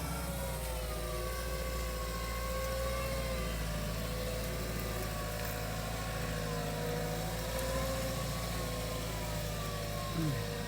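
Volvo L35G compact wheel loader running as it drives up onto a sawdust pile: a steady diesel hum under a whine that rises and falls with the engine and drive load. A short falling tone comes near the end.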